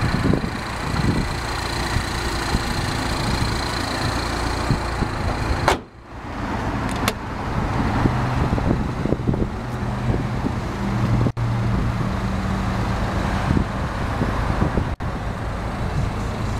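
A 2009 Mini Cooper Clubman S's turbocharged 1.6-litre four-cylinder idling steadily. The sound drops out briefly about six seconds in.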